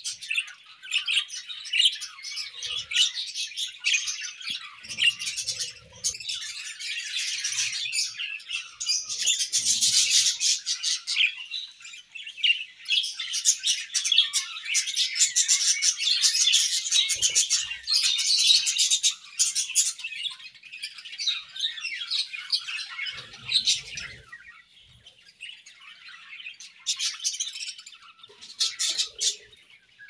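A flock of budgerigars chirping all at once in a dense, busy chatter, growing quieter for the last few seconds.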